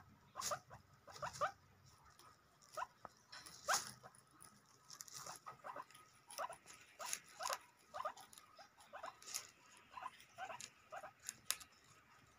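Guinea pigs chewing fresh grass stems and leaves: a quick, irregular run of short crunches.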